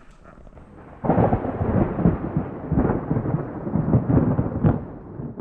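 A loud, low rumbling noise starts suddenly about a second in and runs on in irregular surges.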